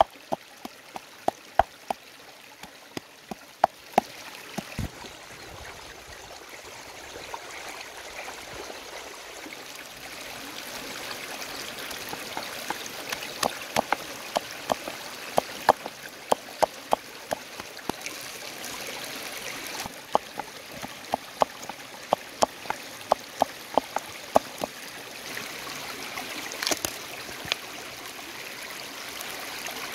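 Wooden pestle pounding wet yellow herb paste in a mortar: sharp knocks about two a second, in a short run at the start and a longer run from about twelve seconds in, with a pause between. A shallow stream babbles steadily underneath.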